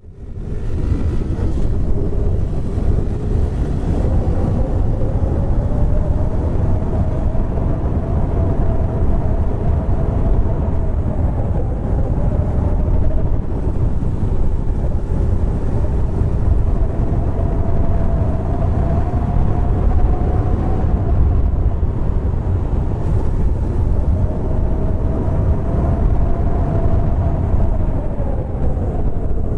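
Honda Grom (MSX125) 125 cc single-cylinder motorcycle ridden on knobby block tyres, picked up by a low-mounted camera. Heavy wind and road rumble lies under a faint engine note that rises and falls several times as the speed changes.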